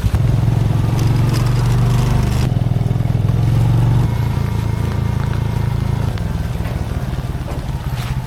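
Motorbike engine running as the bike rides off, a low steady pulsing note that is strongest for the first four seconds and eases a little after.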